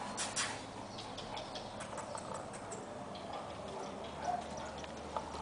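Faint, scattered light ticks and rustles of footsteps on a lawn, with a few slightly louder clicks near the start.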